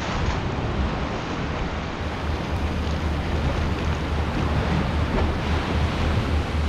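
Rough tidal water churning and breaking in standing waves, with wind; a low, pulsing rumble joins about two seconds in.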